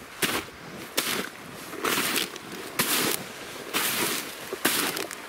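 Footsteps crunching through fresh snow, about one step a second.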